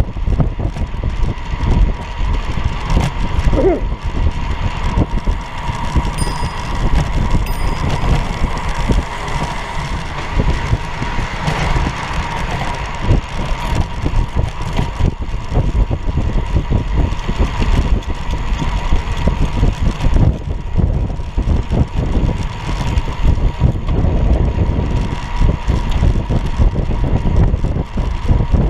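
Wind buffeting the microphone of a camera on a moving recumbent low-racer bicycle, mixed with tyre noise on the pavement, with a faint steady whine running through it. Two short high chirps sound about six and seven and a half seconds in.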